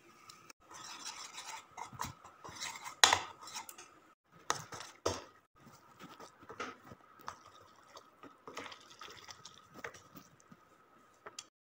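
A utensil stirring instant ramen noodles and their seasoning in a bowl, with irregular scrapes and clinks against the bowl, loudest about three seconds in.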